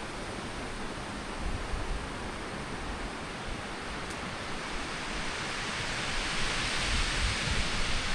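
A gust of wind rushing through forest trees, building up and growing louder over the last few seconds.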